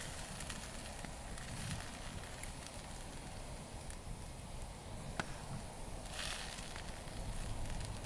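Campfire crackling with scattered small pops and one sharper pop about five seconds in, while a wooden spoon scrapes food from a frying pan into a bowl in two short bursts, near two seconds and near six seconds in.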